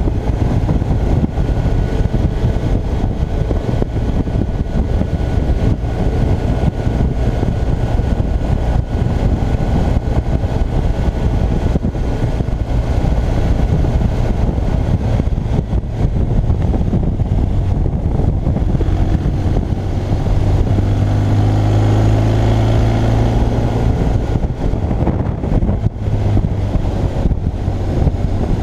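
Motorcycle engine running at road speed, with steady wind rush on the microphone. About three quarters of the way in the engine note grows louder and rises in pitch as the bike accelerates.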